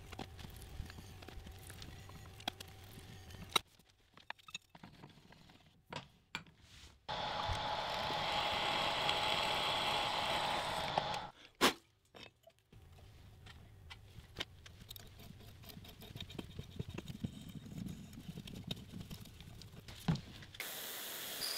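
Metalworking on a steel plate: scattered light taps and clicks as it is marked out in a bench vise, then about four seconds of a twist drill cutting through the plate, the loudest part, which stops abruptly. After that come quieter handling noises with light ticks.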